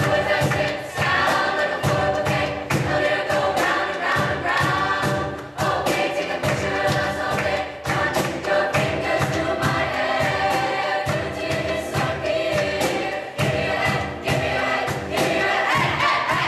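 A choir singing together over a steady rhythmic beat.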